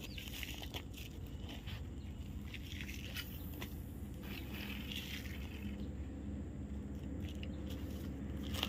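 Intermittent light crunching and rustling from a fishing rod and spinning reel being handled, over a steady low rumble.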